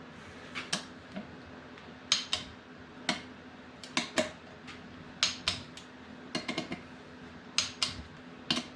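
Sharp metallic clicks, often in close pairs, at an irregular pace of one or two a second: a small torque wrench and socket working the engine case-half bolts down to final torque. A faint steady hum runs underneath.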